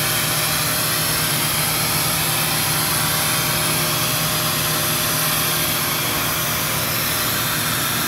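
Stolbek Cosmo robot sander's orbital sanding head running and sanding a thin coat of gray primer on a cabinet door: a steady whirring hiss that holds even throughout.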